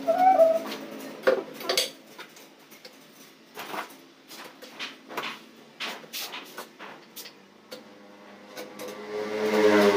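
Scattered sharp clinks and knocks of hard objects, tiles and tools being handled and set. A brief wavering tone sounds right at the start, and a vehicle engine rises in pitch and grows louder near the end.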